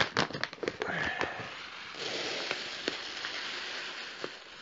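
Plastic bag of fishing pellets crinkling, then the small dry pellets pouring out of the bag into a plastic box in a steady patter for about three seconds.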